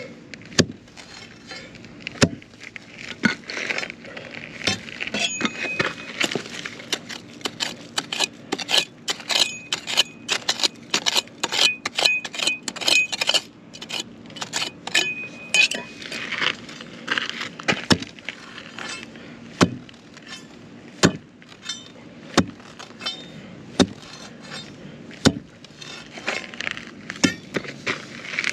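A long run of irregular sharp clinks and knocks, several a second at the busiest, over a faint steady hum.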